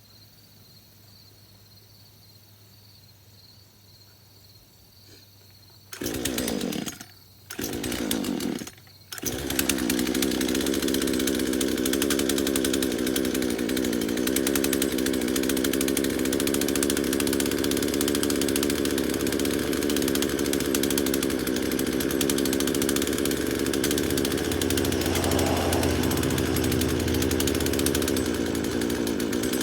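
Old Craftsman two-stroke gas chainsaw firing in two short bursts and then catching and running steadily, after years of sitting unused; it seems to have trouble picking up fuel. A faint insect trill is heard before the engine fires.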